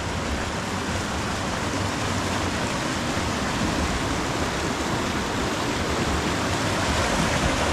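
Rushing river water, a steady, even hiss.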